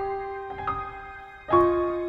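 Gentle background piano music: single held notes struck one after another, each fading before the next.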